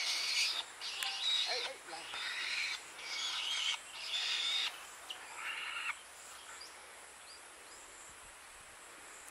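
A bird giving a string of about six harsh, hissing screeches, each around half a second long, which stop about six seconds in.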